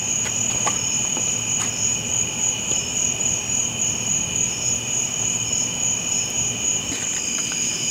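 Night chorus of insects, steady high trilling at two pitches, the higher one faintly pulsing.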